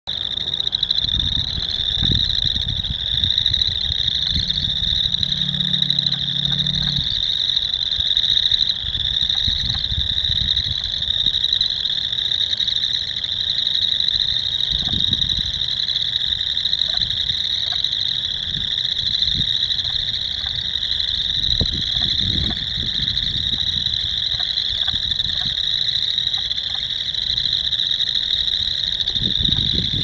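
A dense chorus of many frogs calling at once in a spring breeding pond, their overlapping trills merging into a steady high-pitched din. Irregular low rumbles sit underneath.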